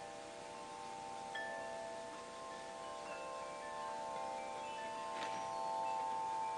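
Chimes ringing: several clear notes struck a second or so apart, each held for seconds so they overlap. A short knock about five seconds in.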